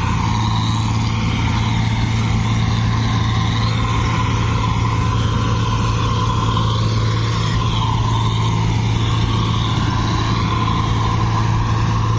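Combine harvester's diesel engine and threshing machinery running steadily, a constant low drone that holds its pitch.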